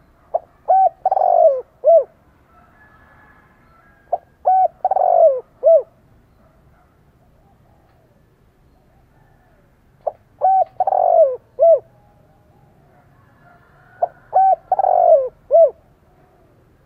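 Caged spotted dove cooing: four phrases, each a few short notes around a longer, falling middle note, about four to six seconds apart.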